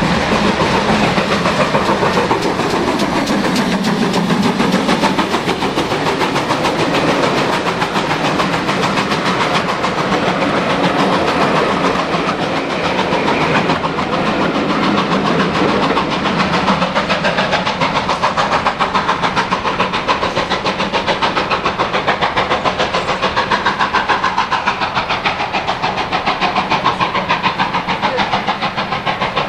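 Steam-hauled passenger train passing close by: the locomotive working and the coaches' wheels clattering over the rails, a loud, fast and steady rhythmic clatter.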